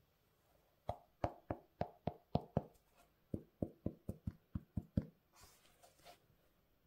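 Two quick runs of sharp, light knocks: about seven, a short pause, then about eight more, roughly three or four a second.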